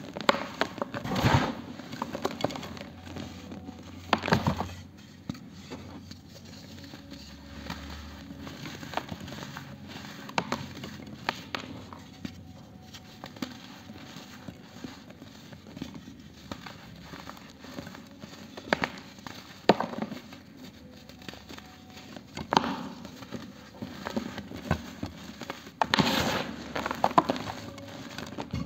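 Dry pure-cement discs being crushed and crumbled in bare hands: gritty crackling and crunching as chunks break and powder sifts through the fingers. Louder crunches come now and then, about a second in, about four seconds in, and in a cluster near the end.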